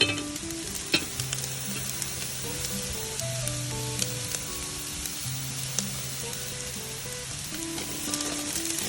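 Rice frying in sesame oil on a hot grill: a steady sizzle, with a couple of sharp clicks in the first second, over soft background music.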